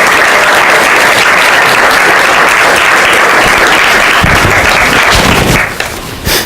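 Audience applauding steadily, then dying away about a second before the end, with one sharp tap as it fades.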